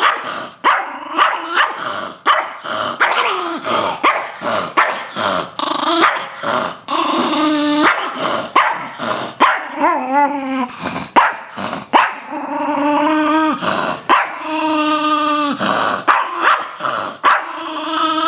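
Chihuahua growling and barking in quick, snappy bursts, broken in the second half by a few drawn-out, wavering yowls about a second long.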